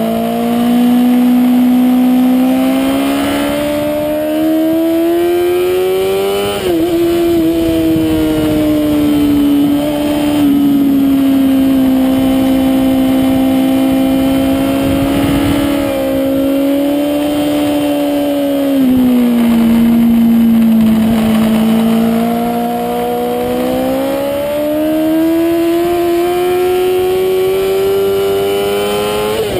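Honda CBR1000RR's inline-four engine running hard at high revs on track, its pitch climbing and falling with the throttle through long corners. Brief sharp dips in pitch come about seven seconds in and near the end, a longer drop a little past halfway, then a steady climb, over wind noise on the microphone.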